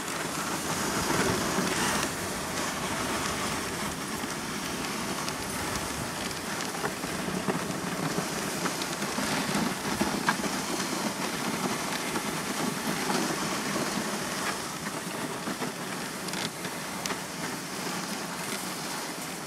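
Dog sled runners sliding steadily over snow as the team pulls, with scattered light clicks and knocks.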